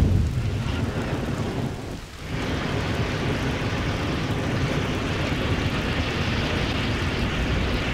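Flamethrower-style fire sound effect: a jet of flame rushing steadily. It comes in two blasts, a short one that cuts off about two seconds in and a longer one that runs on until near the end.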